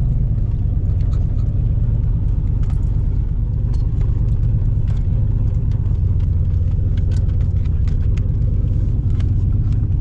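Steady low rumble of a truck driving, heard from inside the cab, with scattered light clicks and rattles.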